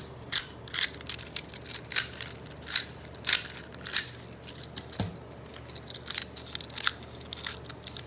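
Grade 2 deadbolts being worked by hand, the bolt mechanism throwing and retracting with a run of sharp metallic clicks and clacks, a few a second and irregular.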